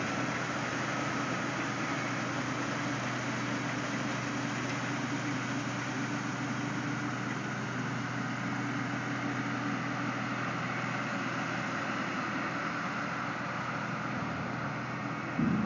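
Tractor and truck engines running steadily: an unchanging low hum under a dense rushing noise, while the raised high-dump gondola is held tipped over the truck.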